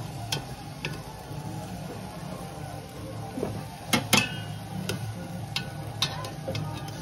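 Metal tongs clinking against a stainless steel mixing bowl and a charcoal grill's wire grate while marinated pork steaks are lifted out of the marinade and laid on the grill: scattered sharp clinks, the loudest two about four seconds in.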